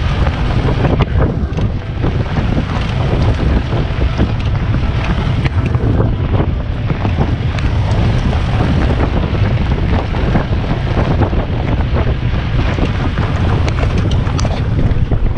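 Wind buffeting the microphone over the steady low rumble of an open jeep driving along a dirt road, with many small knocks and rattles from the bumpy ride.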